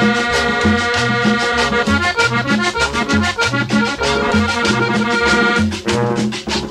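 Colombian-style cumbia music: an accordion plays held chords and melody over a steady, repeating bass line and regular percussion.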